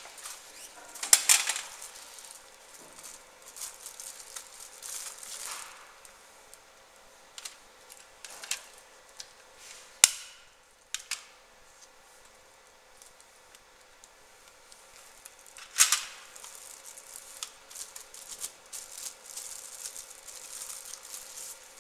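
Handling noise of a plastic box on a laser marker's metal worktable: scattered clicks, knocks and rustles as it is set into place, with sharper knocks about a second in, around ten seconds in, and near sixteen seconds.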